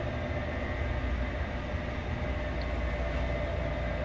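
Steady low rumble with a faint steady hum: indoor room tone of a ventilated gallery.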